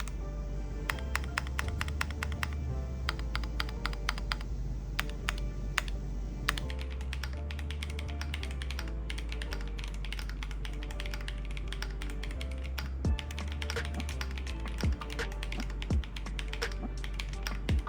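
Typing on a Cidoo V87 Pro aluminium-cased mechanical keyboard: rapid, uneven keystroke clicks, with a few louder keystrokes toward the end. Background music with a steady bass plays underneath.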